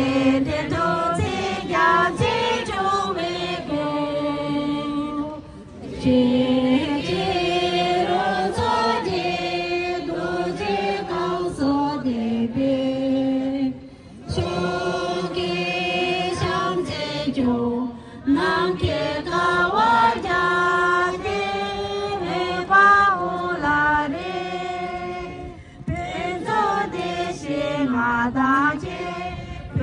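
A crowd of people singing together in long held phrases, with short breaks between phrases every several seconds.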